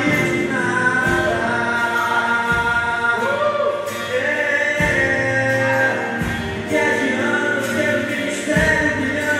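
Christian worship music: voices singing long, wavering notes that slide between pitches, over a low instrumental accompaniment.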